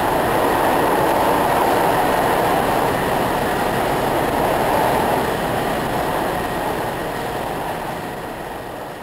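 Audience applauding, a dense, even clapping that slowly dies away near the end.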